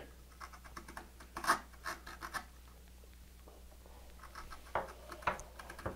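Hand chisel paring thin shavings from a wooden finger-joint pin: a few short, faint slicing scrapes, in two small groups with a quiet pause between.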